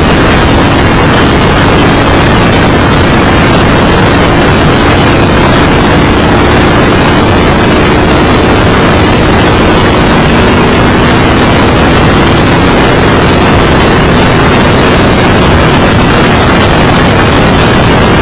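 Open-wheel Indy car running at speed on an oval, heard from an onboard camera: a loud, steady rush of wind buffeting the microphone over the engine's held, nearly even note.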